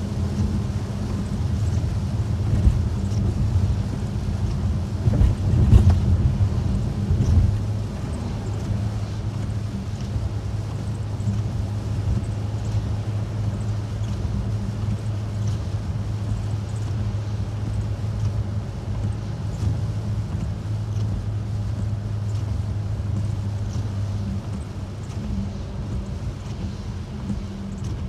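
Car cabin noise while driving on a rain-soaked road: a steady low hum of engine and tyres with a hiss of wet pavement, swelling louder about six seconds in.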